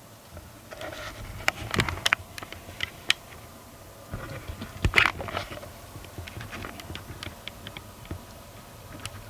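Hand work on car parts: scattered clicks, light knocks and scraping, with a cluster of sharper clicks early and one louder knock about five seconds in.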